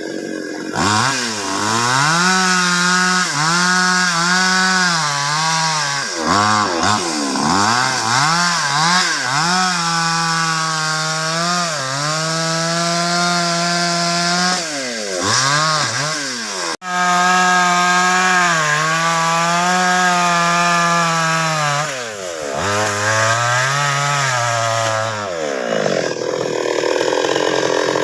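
Chainsaw cutting baros timber, the engine revving up and holding steady through long stretches at full throttle, then dropping back, with bursts of short quick revs in between.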